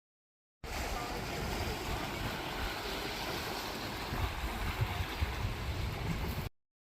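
Wind buffeting the microphone over the rush of sea water, starting and stopping abruptly, with gusts in the low rumble toward the end.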